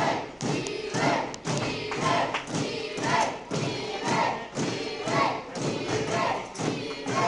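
Thuds of wrestlers on the ring mat during a match, mixed with a crowd chanting in a steady rhythm of about one beat a second.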